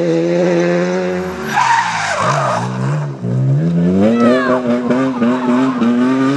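Rally car engine held at high revs, then a burst of skidding noise about a second and a half in as the revs drop and break up through downshifts. The engine then climbs steadily in pitch as the car accelerates away.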